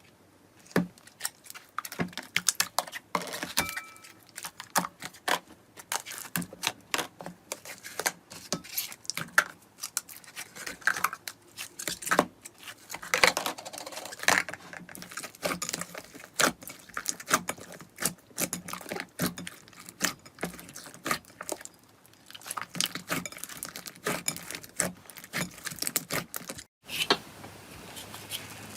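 Slime being squeezed, poked and pressed by hand, giving irregular sticky pops, clicks and crackles. A short break near the end is followed by a softer, steadier squishing rustle.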